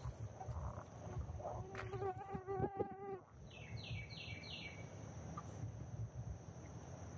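Woodland ambience: a steady high insect drone with a low rumble beneath it. About two seconds in, an animal gives a lower wavering call. Just after halfway, a bird gives four quick downslurred notes.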